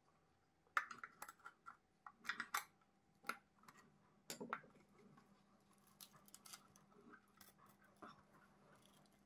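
Motorcycle headlight parts and a screwdriver handled on a hard stone worktop: a scattered series of light clicks and taps, with a faint steady hum beneath.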